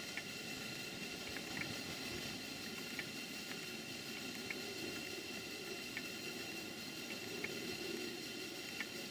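Model live-steam boilers and engines in steam, giving a steady hissing, rushing noise. Light irregular ticks come about once a second over a faint high steady tone.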